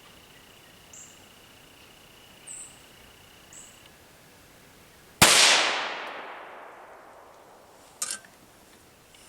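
A single shot from a CZ 457 bolt-action rifle in .22 WMR, about five seconds in, with a long echo that fades over about three seconds. Before it, a steady insect drone; a short click follows near the end.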